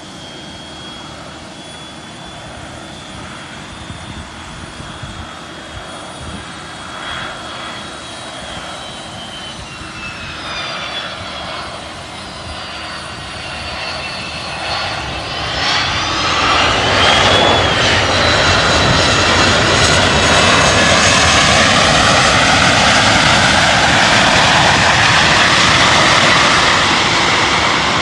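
Boeing 727 jet, with its three Pratt & Whitney JT8D engines, coming in and growing steadily louder, high whining tones sliding down in pitch as it nears. About halfway through it reaches a loud, steady jet rush that holds until it eases off slightly near the end.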